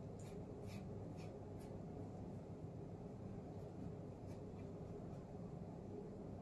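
Faint scratching of a paintbrush stroking acrylic paint onto a canvas board, a few soft strokes at a time, over a low steady background hum.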